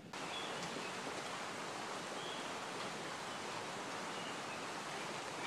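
Creek water flowing, a steady rushing noise.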